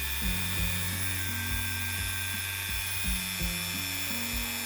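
Dremel 4000 rotary tool running steadily with no load, a high whine: a new tool being run in, hung on a bungee to damp vibration. Background music plays under it.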